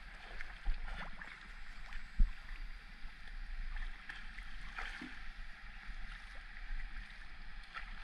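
River water flowing and splashing around an inflatable raft, with a few short knocks and one louder thump about two seconds in.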